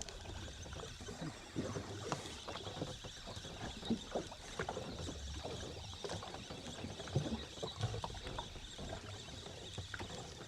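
Water lapping against the hull of a small boat at sea, with scattered light knocks throughout.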